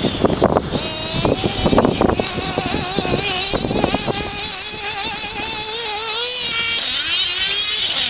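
Nitro RC car engine running at high revs with a high, wavering whine as the throttle is worked, dipping a little after six seconds and climbing again near the end. Low rumbling thuds over the first two seconds.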